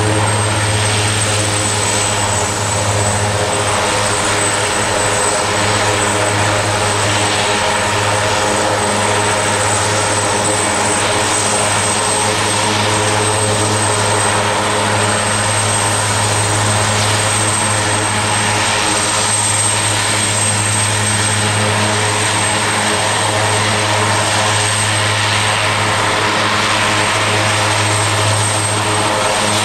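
Aerospatiale AS332L1 Super Puma helicopter running on the ground with its main rotor turning, its twin Turbomeca Makila turboshafts powering it. A steady low rotor drone lies under a high, thin turbine whine.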